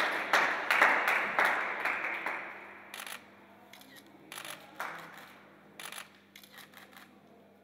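Applause dying away over the first two seconds, then scattered camera shutter clicks, some single and some in quick pairs.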